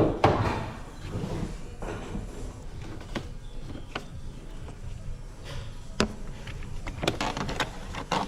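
Scattered knocks and clicks, several of them sharp, over a low steady rumble.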